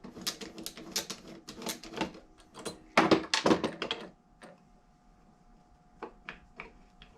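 Quick, irregular clicks and taps of small metal and plastic parts being handled on a workbench while a fuel injector is pushed back into its seat in a throttle body. There is a dense flurry about three seconds in, a short lull, then a few more clicks near the end.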